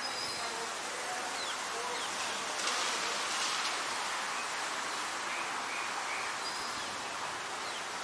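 Steady rain falling on garden foliage, an even hiss, with a few faint bird chirps.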